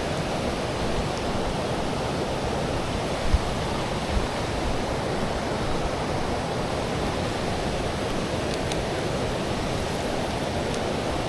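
Steady rush of flowing river water, with two dull thumps about a third of the way in.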